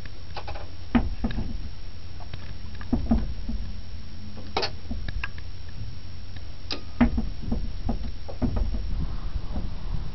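Wooden gearing and cast-iron windshaft of a polder drainage windmill turning, heard from inside the cap: a steady low rumble with irregular wooden creaks and knocks, the sharpest about a second in, around four and a half seconds and about seven seconds in.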